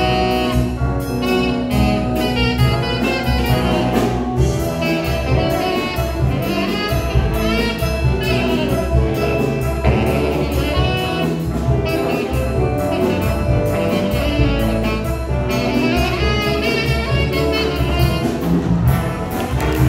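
High school jazz big band playing live: saxophones, trumpets and trombones over drum kit and bass.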